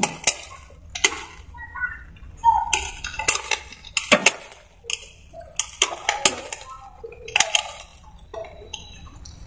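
Irregular metallic clicks, clinks and knocks of a screwdriver working the mounting screws of a new distributor cap on a Maruti Alto's distributor.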